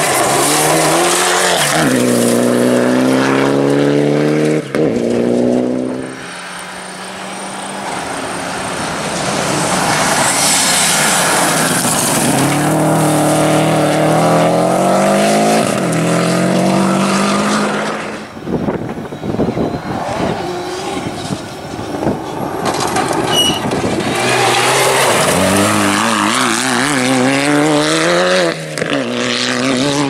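Rally cars at full power on a gravel stage: engines revving hard and climbing in pitch, then dropping back at each gear change, in three loud bursts of acceleration with quieter stretches between passes.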